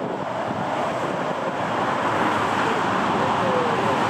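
Twin-engine Embraer E195 regional jet's turbofan engines running at taxi power, a steady whooshing roar that grows slightly louder as the aircraft approaches.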